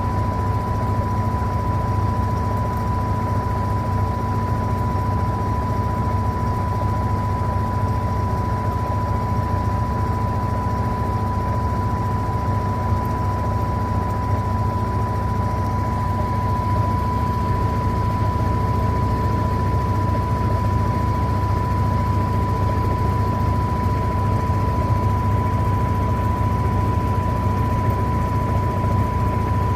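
Electrolux LTA15 washing machine running: a steady low motor hum with a constant thin whine above it, unchanging throughout.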